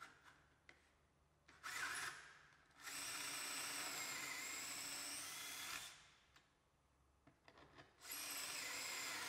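Cordless drill boring holes into a furniture front panel through the sleeves of a drilling jig. It runs in three bursts: a short one about two seconds in, a longer one of about three seconds, and another near the end, with pauses between them.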